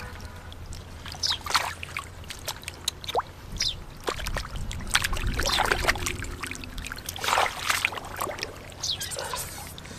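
Shallow water splashing and sloshing in irregular bursts, as hands work through it to catch fish.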